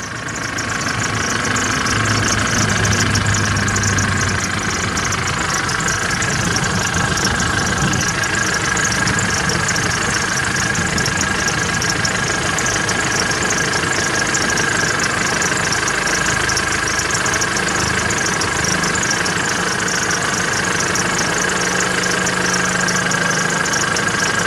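Chevrolet TrailBlazer 2.8 four-cylinder turbodiesel idling with its diesel clatter, and a steady high whistle running over the engine sound throughout.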